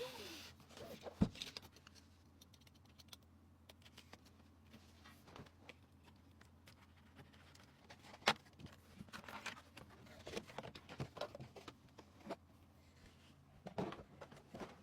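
Faint scattered clicks, taps and light rustles of small hard parts being handled, over a low steady hum, with two sharper knocks about a second in and about eight seconds in.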